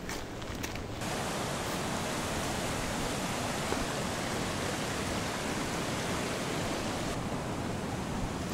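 Footsteps for about a second, then a steady rushing of water that starts abruptly and turns duller near the end.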